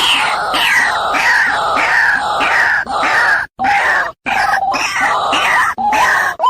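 White-breasted waterhen calling: a loud run of harsh repeated notes, about two a second, each dropping in pitch. After a short break about halfway, the calls turn lower, with quick rising notes.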